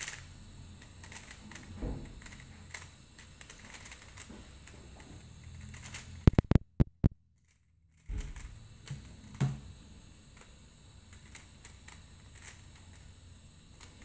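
Rapid clicking and clacking of an Angstrom Valk 3 Elite M magnetic 3x3 speedcube being turned fast during a speedsolve. About six seconds in, the sound cuts out for roughly two seconds, broken by a few sharp pops, then the turning clicks resume.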